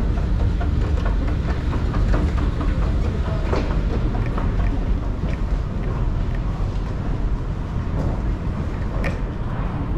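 Toronto subway train running on the rails: a steady low rumble with scattered clicks and knocks from the wheels, fading a little over the last few seconds.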